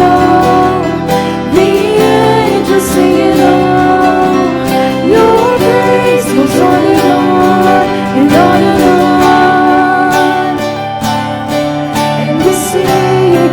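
Worship music with guitar: steady chords under a gliding melodic line.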